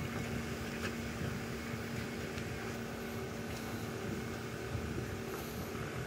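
Small DC water pump and heatsink cooling fan of a Peltier mini-fridge running with a steady hum, the pump circulating water through the cooling blocks.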